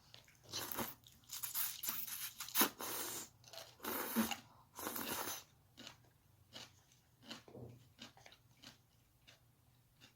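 Close-up crunching and chewing of fried shrimp balls, with loud crisp bites in the first half easing into softer, scattered chewing clicks.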